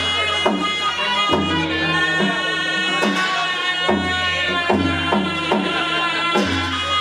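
Northern Thai (Lanna) traditional ensemble music for a fon dance: a sustained, held melody over a steady drum beat of roughly one stroke a second.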